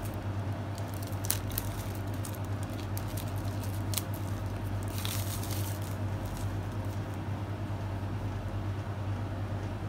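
Plastic shrink-wrap crinkling and crackling in sharp bursts as it is peeled off a phone box by hand, with a longer rustle about five seconds in, over a steady low hum.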